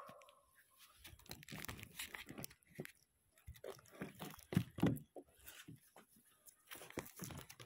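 Irregular crinkling, rustling and light knocking from handling a duct-taped plastic object and its cables.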